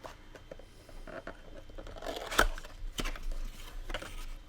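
Packaging of a trading-card box and its wrapped packs being handled: rustling and crinkling with a few sharp clicks and taps, the loudest about halfway through.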